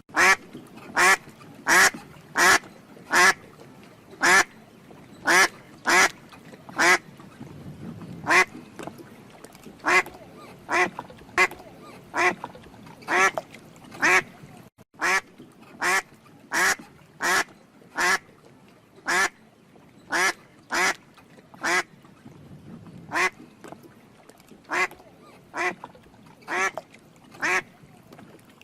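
A duck quacking over and over in short, sharp quacks, roughly one to two a second, often in quick pairs.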